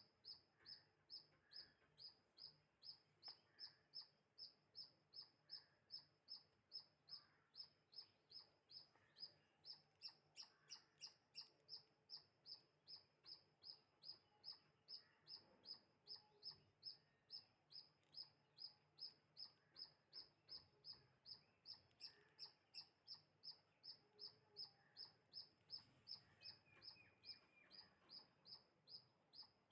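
A small bird repeating a high, thin chirp at a very even pace, about three a second, with fainter chirps from other birds behind it.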